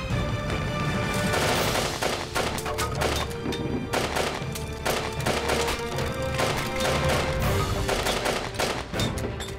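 Rapid gunfire from rifles and submachine guns: many shots in quick, irregular succession, over dramatic background music.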